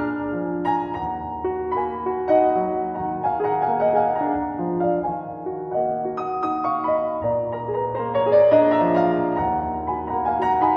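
Background instrumental music: slow melodic keyboard notes, most likely piano.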